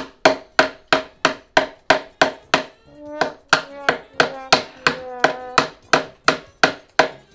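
A hammer driving fasteners through a metal hinge into a wooden plank: quick, even blows, about three a second, each with a short ringing tail.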